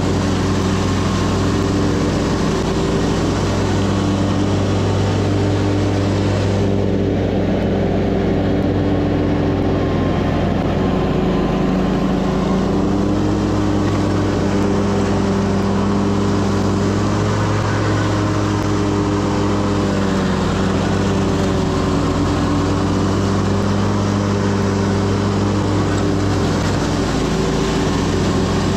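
Commercial lawn mower's engine running steadily close up, a constant drone with a steady low hum; the higher hiss eases somewhat about seven seconds in.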